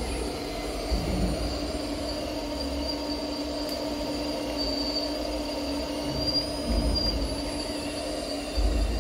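Radio-controlled model Liebherr 954 excavator's motors whining steadily as it digs, with low thumps of the bucket working the soil about a second in, near the seventh second and near the end.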